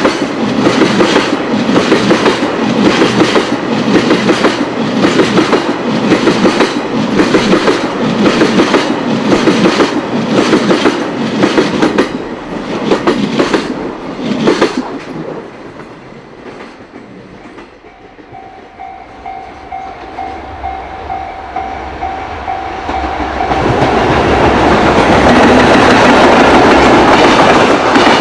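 Long freight train of tank wagons and container flatcars running past, its wheels clattering in a steady rhythm over the rail joints, fading away about fifteen seconds in. After a lull with a steady ringing tone, the next EF210-hauled freight train arrives loudly near the end.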